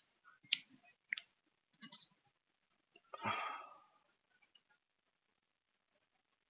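Faint, scattered clicks of computer keyboard keys typing letters, a few spaced out over the first two seconds and a small cluster after about four seconds. A short soft rush of noise a little past the three-second mark is the loudest sound.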